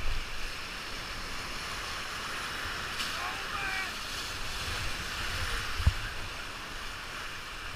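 Whitewater rapid rushing steadily around a raft running it, with a few low thumps on the microphone, the sharpest about six seconds in.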